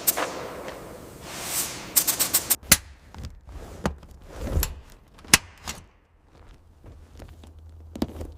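A hiss that dies away after about two and a half seconds, then single sharp knocks spaced a second or more apart, with a deeper thud in the middle.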